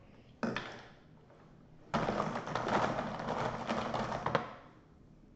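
Plastic markers clattering in a clear plastic storage bin as a hand rummages through them: a short clatter about half a second in, then a dense rattle of many small clicks lasting a couple of seconds.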